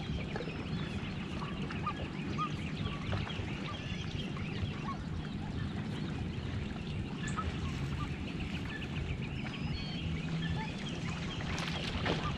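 Geese honking: many short calls scattered throughout, over a steady low rumble.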